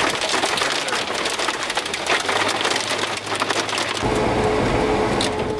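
Heavy rain pelting the car, a dense crackle of drops striking the roof and windshield. About four seconds in it cuts off abruptly to a low steady rumble with a faint steady tone.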